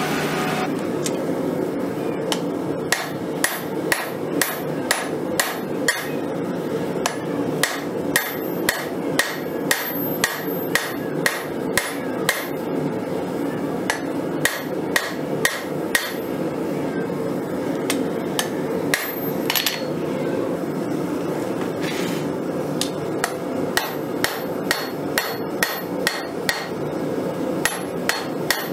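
Hand hammer striking a red-hot steel file on an anvil as it is forged into a sword blade, in runs of about two blows a second with a lull in the middle. A steady rushing noise runs underneath the blows.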